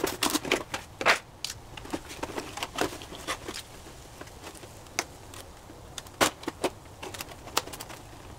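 Cardboard box and paper packing being opened and handled: irregular rustles, scrapes and sharp clicks.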